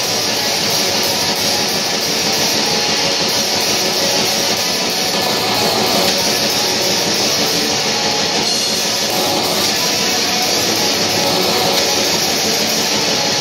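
Black metal band playing live: a dense, steady wall of distorted electric guitars, bass guitar and drums, with no break.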